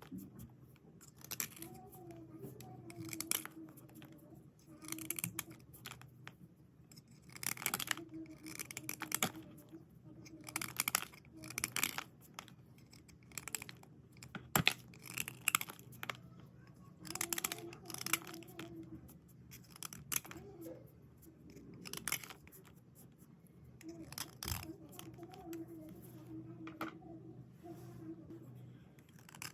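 White slate pencils and slate pieces being rubbed and scraped dry, in irregular bursts of scratchy strokes.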